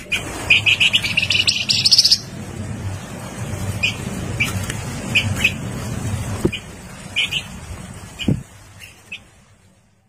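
Caged songbird singing: a fast run of notes climbing in pitch for about two seconds, then short separate chirps, over a low steady background rumble.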